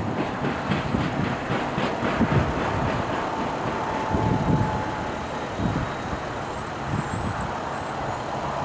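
Norfolk Southern manifest freight train rolling away as it slows, its wheels clicking over the rail joints at a few clicks a second and fading into a low rumble. A faint thin squeal comes in for a couple of seconds midway.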